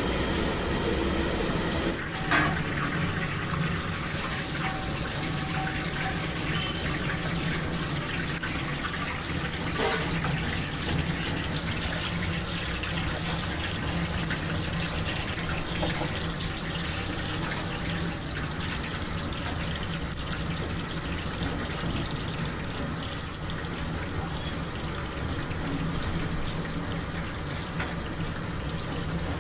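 Mysore bonda batter balls deep-frying in a kadai of hot oil: a steady sizzle and bubbling, with a few sharp knocks, the loudest about two and ten seconds in.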